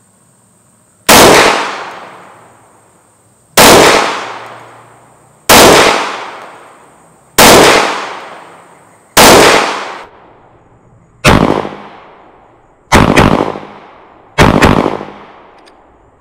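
Glock 30 compact pistol firing .45 ACP rounds from a 10-round magazine: eight shots at a slow, steady pace, about two seconds apart, each a sharp crack that rings out over the range.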